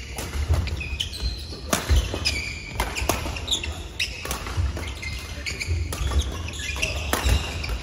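Badminton doubles rally: sharp cracks of rackets striking the shuttlecock, several in a row about a second apart, with sneakers squeaking and feet thudding on the court mat.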